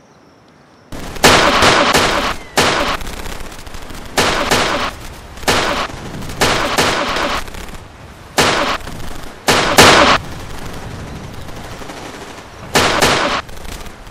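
A string of loud single gunshots, about a dozen, irregularly spaced and each with a short echoing tail, beginning about a second in after a near-silent start.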